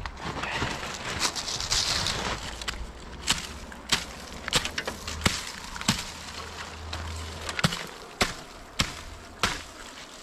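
Footsteps in snow at a steady walking pace, a sharp step about every two-thirds of a second, over a low steady rumble.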